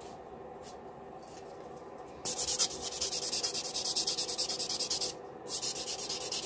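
Hand nail buffer rubbed in quick back-and-forth strokes across an acrylic nail to smooth it out. The rubbing starts about two seconds in, stops briefly about five seconds in, then starts again.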